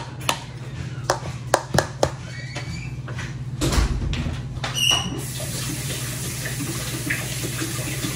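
Kitchen tap running in a steady hiss from about five seconds in, after a few sharp clicks and knocks of things being handled. A steady low hum runs underneath.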